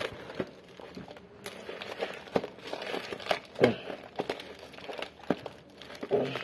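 Cardboard parcel wrapped in packing tape being torn open by hand: crinkling and ripping of cardboard and tape in irregular short crackles.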